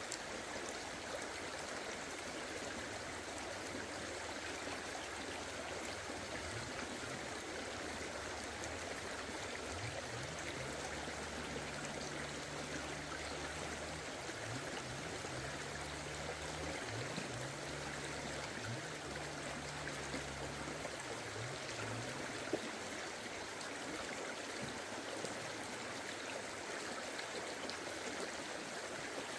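Forest stream running steadily over rocks. A faint low hum comes and goes through the middle, and there is a single brief click about two thirds of the way in.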